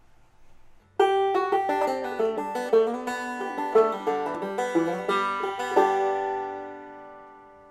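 Title music on a plucked-string instrument: a quick picked phrase starts about a second in and ends on a chord that rings and slowly fades away.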